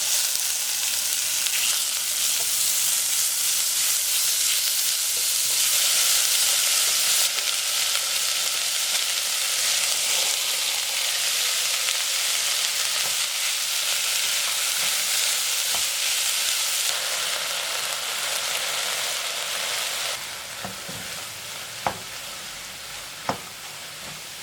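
Food frying in a pan: a steady sizzle that dies down about four seconds before the end, followed by two sharp taps.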